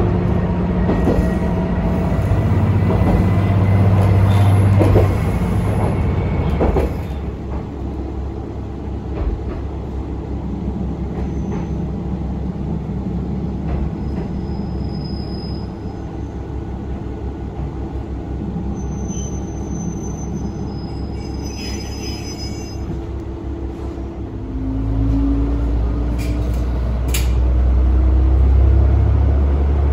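Diesel railcar running, heard from inside the car: a steady low engine hum over rail noise. The engine drops back about seven seconds in, then picks up again with a rising note about 25 seconds in.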